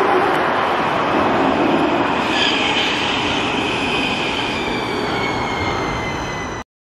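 Helsinki metro train running on the rails, a steady rumble with a high whine that joins about two seconds in and slowly falls in pitch as the train pulls away from the platform. The sound cuts off abruptly near the end.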